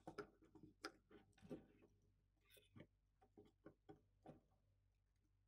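Faint, irregular small clicks and ticks from a small screwdriver driving a tiny screw through a plastic wheel into a servo, and from the plastic robot chassis being handled.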